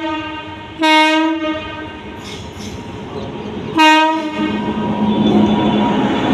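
WAP-7 electric locomotive's horn sounding short blasts: the tail of one at the start, then two more about a second and four seconds in. The locomotive then passes close, with a steady hum over the rumble and clatter of wheels on the rails.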